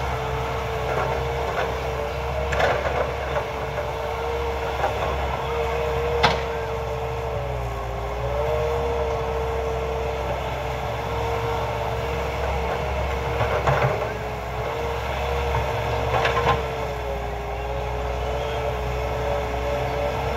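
Caterpillar excavator working, its diesel engine running steadily under a low rumble with a whine that sags slightly in pitch now and then. Several short knocks and clatters come through it, the sharpest about six seconds in.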